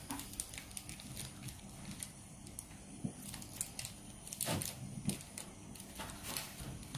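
Thin clear plastic wrapper crinkling and rustling in the hand as a soft snake-food pellet is pushed out of it. Faint scattered crackles, with two longer crinkles about halfway through and near the end.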